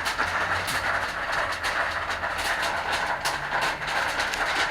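Falling water: a steady rushing splash with many irregular drips and spatters against it.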